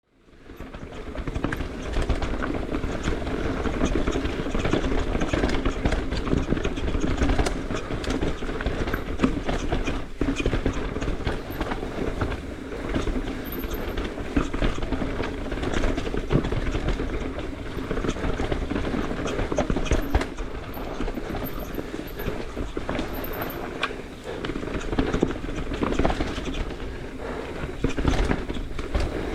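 Mountain bike descending a rocky trail: tyres clattering over rocks, with the chain and frame rattling and many sharp knocks from hits.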